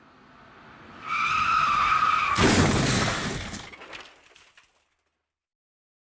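Car crash sound effect. Noise builds, then tyres screech for about a second and a half. A crash with shattering follows and fades out over about two seconds.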